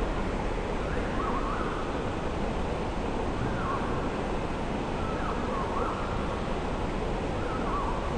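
Steady rush of flowing creek water, with a bird giving short warbling calls about four times, every couple of seconds.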